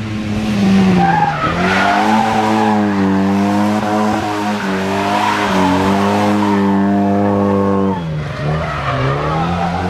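Historic rally car's engine held at high revs under load, dipping briefly in pitch about a second in and again near the end as the driver lifts or shifts, with tyres squealing on the tarmac.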